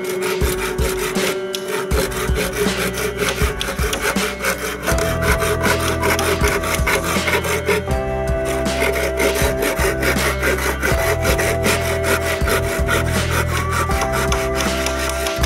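Machete blade cutting into a green bamboo pole with quick repeated strokes, over background music with held notes and a steady bass.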